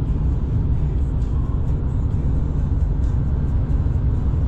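Steady low road and engine noise heard inside a car's cabin while driving at highway speed.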